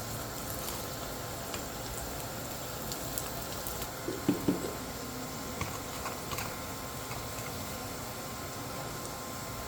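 A pot of red lentil dal simmering, with a steady low bubbling and scattered small pops. Two brief louder knocks come about four seconds in.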